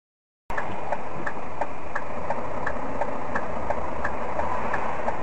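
Engine and road noise inside a moving vehicle. About half a second in the sound starts abruptly and runs steadily, with regular short ticks about three a second that alternate between a higher and a lower click.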